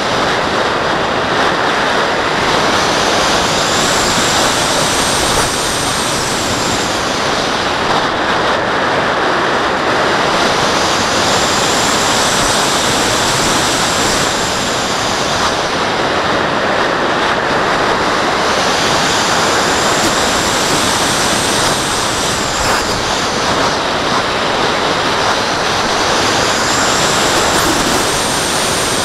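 Airflow rushing over a Mobius action camera mounted on a glider in flight, a loud steady wind noise. A high whistle over it rises and falls about every eight seconds as the glider banks round.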